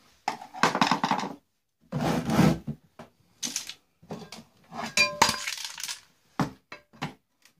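Clothes iron being taken apart by hand: its plastic housing and inner parts clatter and rattle in irregular bursts, with sharp knocks and clicks and a short ringing clink about five seconds in.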